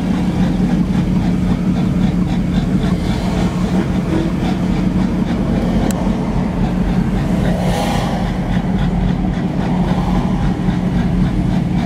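Duramax LLY 6.6-litre V8 turbodiesel of a lifted 2004 pickup with a 5-inch exhaust, running steadily at low speed, heard from inside the cab as a constant low hum with rumble and no revving.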